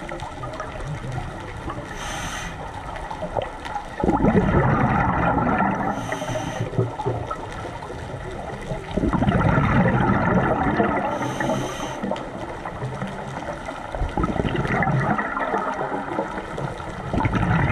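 A scuba diver's regulator breathing, heard underwater: short hissing inhalations, each followed a couple of seconds later by a sudden, long rush of gurgling exhaled bubbles, about three breaths in all.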